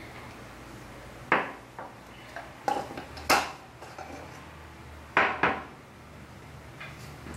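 Several sharp clinks and knocks, in two clusters, of a spoon and kitchen containers being handled and set down while measuring out dry ingredients.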